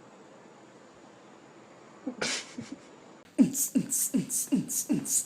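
Faint steady hum, a short hiss about two seconds in, then from about three and a half seconds a fast rhythmic beat: a low, falling thump with a sharp hiss on each, about two and a half a second, like beatboxing or a drum-machine beat.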